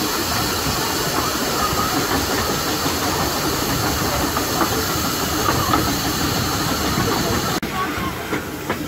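Steady running noise of a 15-inch gauge Bure Valley Railway steam train heard from aboard: a dense rumble of wheels on rail under a loud hiss. About seven and a half seconds in, the hiss drops away abruptly.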